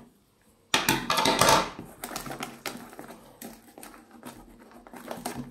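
Plastic shrink wrap on a cardboard box crinkling as a hand pulls and handles it: a loud burst of crinkling about a second in, then lighter rustling and small taps.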